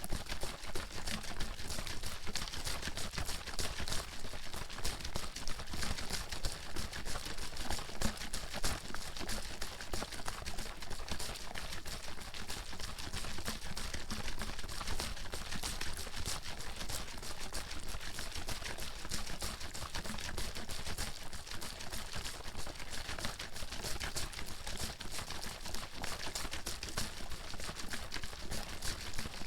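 Water sloshing and splashing in a plastic bottle shaken continuously and fast.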